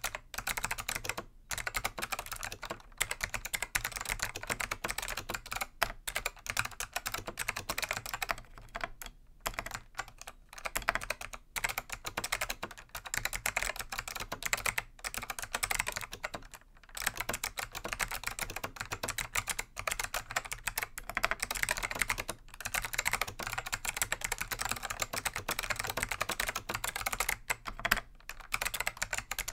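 Dell AT101 keyboard with click-modded Alps SKCM Black switches being typed on fast: a rapid, continuous stream of clicky keystrokes broken by a few brief pauses.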